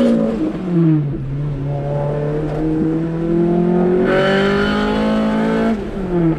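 Car engine being revved while standing: the revs fall back about a second in, climb slowly, are held up for a couple of seconds, then drop back toward idle near the end.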